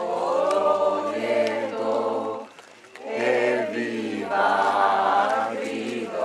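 Many voices singing together in two long phrases, with a short break for breath about two and a half seconds in.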